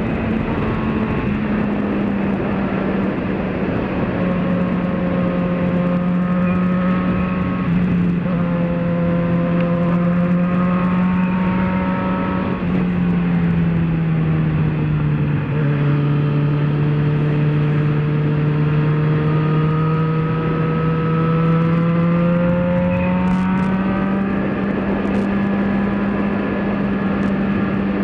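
Yamaha XJ6's 600 cc inline-four engine running under way at road speed, over steady wind rush. The engine note drops in pitch from about twelve to sixteen seconds in, then slowly rises again.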